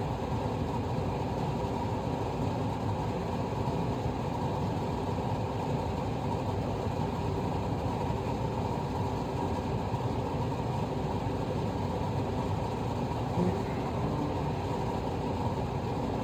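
Kitchen exhaust fan running steadily, an even low hum.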